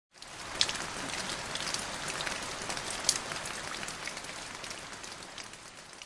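Steady rain falling on leaves, with loud individual drops splashing now and then, slowly fading toward the end.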